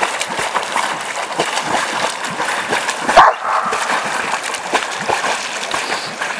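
River water running steadily, with a dog barking once about three seconds in.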